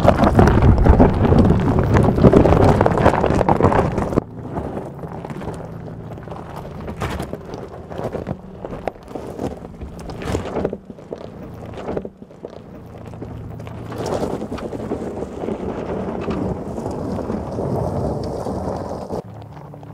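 Mercedes-Benz G580 electric SUV crawling over a loose, rocky dirt track, with gravel crunching and stones clicking and knocking under the tyres. Wind buffets the microphone loudly for the first four seconds, then eases.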